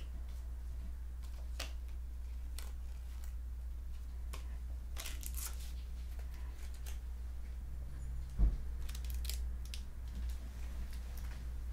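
Football trading cards being handled and laid down on a table: scattered light clicks and slides, with one thump on the table about eight and a half seconds in, over a steady low hum.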